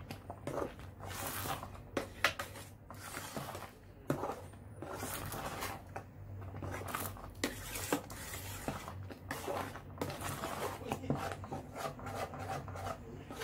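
A metal spoon stirring a thick white sauce in a stainless steel pot, with irregular scrapes and knocks of the spoon against the pot's sides and bottom.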